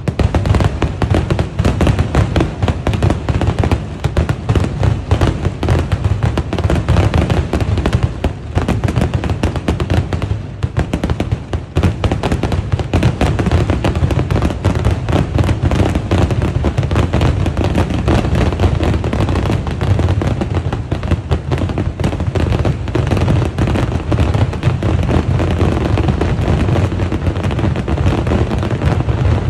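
Daytime fireworks going off in a loud, dense, near-continuous run of bangs, with shells bursting in the sky. The run thins briefly about eight and eleven seconds in.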